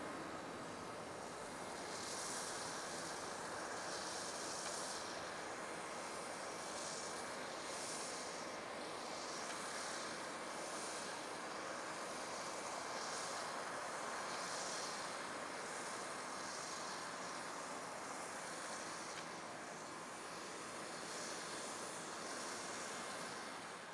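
Boeing 737-700's CFM56-7B turbofan engines at takeoff power, heard from a distance as a steady jet noise while the airliner rolls away down the runway and climbs out.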